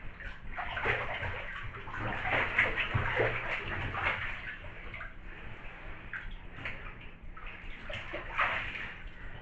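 Bathwater sloshing and splashing as a person in a down jacket and boots lowers into a full bathtub and lies back. It is heaviest in the first few seconds, with another short splash near the end.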